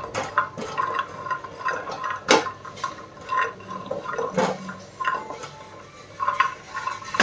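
Cashews being dry-roasted in a kadhai, stirred with a spatula: the nuts rattle and slide and the spatula scrapes the pan, with irregular knocks. The sharpest knock comes about two seconds in.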